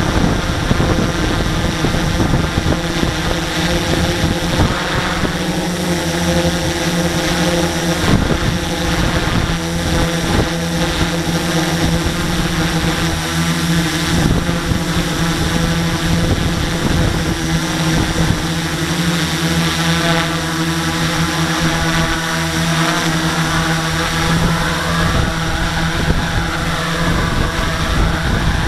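Multirotor drone's electric motors and propellers whining steadily at a constant pitch. In the last few seconds the motor pitch rises and falls as the drone descends onto the ground.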